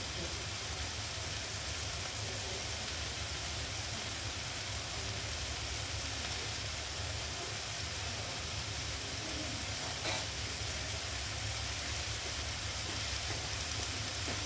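Stir-fried cabbage and carrots sizzling steadily in a frying pan on a gas stove, with a low steady hum underneath.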